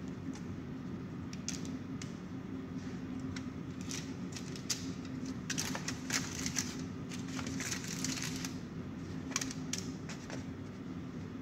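Gloved hands handling asparagus spears on a foil-lined baking tray, making irregular crinkles and clicks of aluminium foil and plastic gloves that are busiest around the middle. A steady low hum runs underneath.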